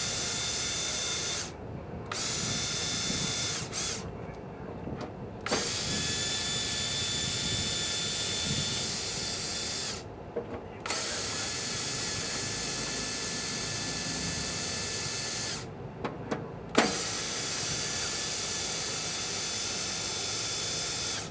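Power drill spinning a 5/16 driver socket, which has been turned down on a lathe to fit, as it backs out the screws holding a welder's handle. It runs as a steady whine in five spells of a few seconds each, with short pauses between them.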